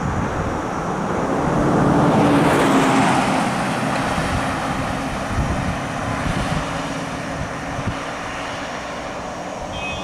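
A Toyota Land Cruiser drives past close by, its engine and tyre noise swelling to a peak about two to three seconds in and then fading as it moves away down the road.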